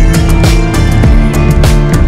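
Loud background music with a steady drum beat over sustained tones.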